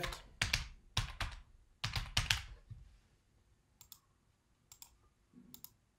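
Typing on a computer keyboard: a quick run of about ten keystrokes in the first two and a half seconds, then a few isolated clicks later on.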